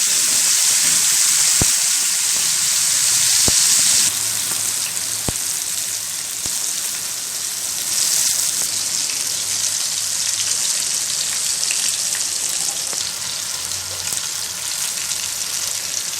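Marinated chicken drumsticks shallow-frying in hot oil on a heavy dosa tawa: a steady sizzle with a few light clicks in the first few seconds. The sizzle drops a little about four seconds in.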